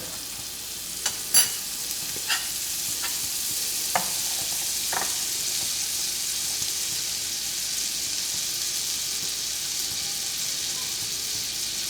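Butter sizzling as it melts in a cast iron skillet, a steady hiss that builds a little over the first few seconds, with several light clicks and taps in the first five seconds.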